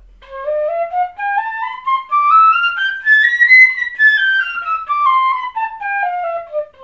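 Pífano (Brazilian transverse fife) in C playing a fast scale exercise: it steps quickly up from low C through two octaves into the third octave, then straight back down to low C. The notes are played four to a beat, three slurred and one tongued.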